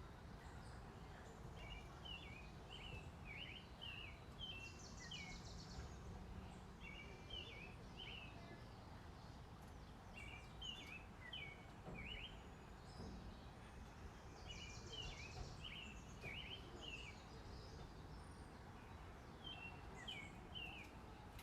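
Faint outdoor background hiss with a songbird singing short chirpy phrases again and again, a few seconds apart. Twice a brief, higher buzzy trill cuts in.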